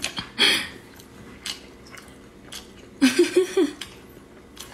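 A small child eating a long strip of wakame seaweed, with slurping and chewing mouth noises: a short slurp about half a second in, a few faint clicks, and a brief wavering 'mm' mixed with more slurping about three seconds in.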